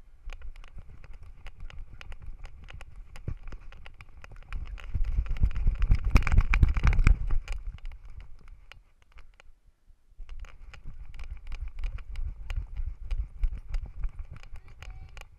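Rapid rhythmic thumping and clicking from a GoPro camera strapped to a running miniature schnauzer's harness, jolting with each stride. It is loudest in the middle, stops for about a second, then starts again.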